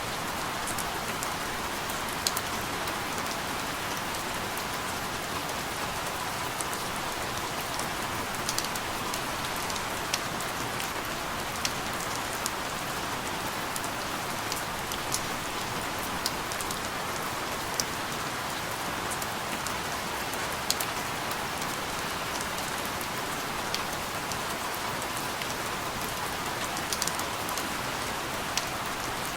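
Steady rain falling, an even hiss with scattered sharp drip ticks on top.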